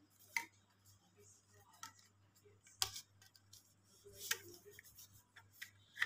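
A few sharp plastic clicks and knocks, the loudest about half a second, three seconds and four seconds in: a cordless handheld vacuum cleaner's attachments being handled and set down, with the motor off. A faint steady low hum lies underneath.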